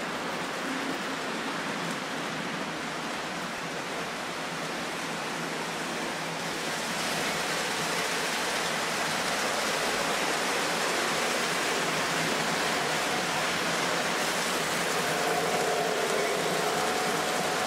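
Three-rail O-gauge model trains rolling on the track, a steady rushing roar of wheels on rail. It grows louder from about seven seconds in as a diesel locomotive with stack cars comes toward the front, and a humming tone joins near the end.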